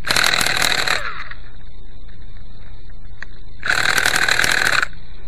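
Quickie 18 RC helicopter's glow engine turned over in two bursts of about a second each, trying to start but not catching. It is a hard-starting engine, which the owner suspects of low compression or a leaking fuel line.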